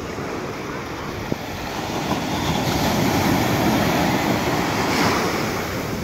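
Ocean surf: a small wave breaking and washing up a sandy beach, the rush of water swelling through the middle and easing off near the end.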